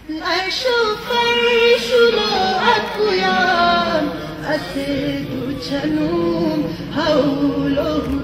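A woman singing a slow, mournful elegy into a microphone, with long held notes that waver in pitch.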